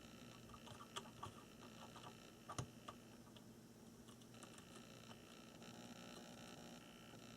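Near silence: a faint steady hum with a few small clicks and taps, about a second in and again near the middle, from handling a soldering iron against a connector.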